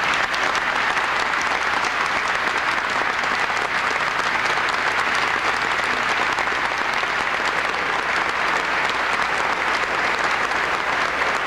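A large crowd applauding steadily, with many hands clapping at once.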